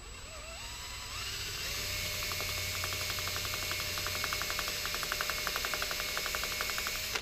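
Handheld electric drill boring a pin hole, without cutting oil, through a steel flash hider into the barrel threads beneath it. The motor winds up in a rising whine over the first second or two, then runs steadily with a fast, even ticking as the bit cuts, and stops abruptly at the end.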